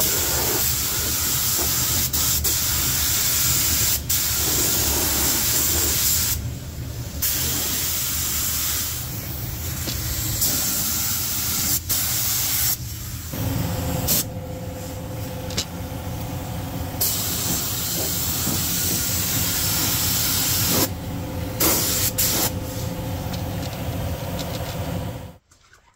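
Compressed-air gravity-feed spray gun spraying epoxy primer: a steady hiss of air and paint, broken by several short pauses as the trigger is let off. It stops suddenly near the end.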